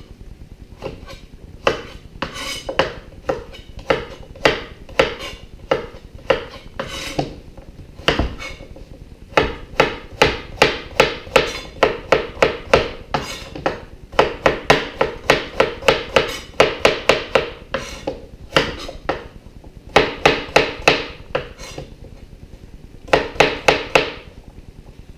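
Knife chopping raw turnips on a cutting board: sharp knocks in runs of quick strokes, roughly two or three a second, with short pauses between runs.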